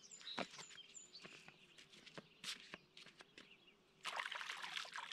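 Quiet lakeshore: a few short high bird chirps and scattered light clicks and scuffs of footsteps on rock over a faint steady hum, then about four seconds in a brief rush of noise lasting about a second.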